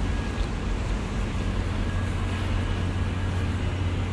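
Steady low rumble and hum of moving vehicles, even throughout with no distinct events.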